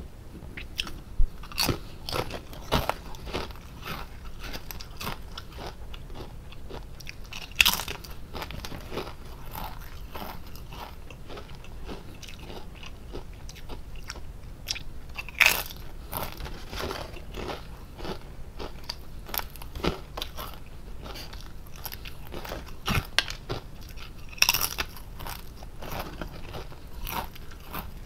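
Lay's potato chips being bitten and chewed close to the microphone: a steady run of small crisp crackles as they are chewed, broken by a few louder, sharp crunching bites several seconds apart.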